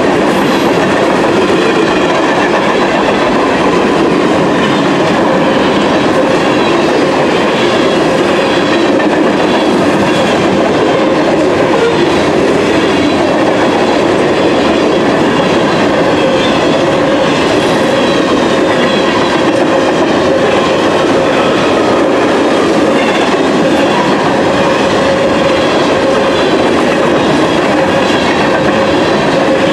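Mixed freight train's cars rolling past: a steady, loud rumble and clatter of steel wheels on the rails.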